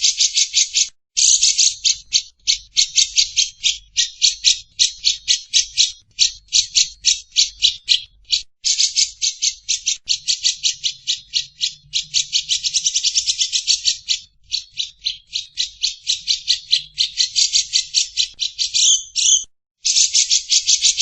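Recorded bird call: a long, rapid chattering trill of sharp repeated notes, several a second, broken by a few brief pauses.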